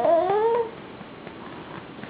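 A baby's drawn-out vocal squeal, rising in pitch, stopping within the first second.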